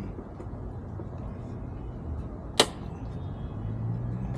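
A single sharp plastic click about halfway through as a push-pin fastener pops out of a motorcycle body panel, over a low steady hum.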